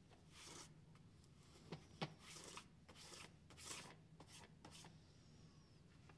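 Faint rustling and rubbing noises in short bursts, with two light sharp clicks about two seconds in, like small objects being handled.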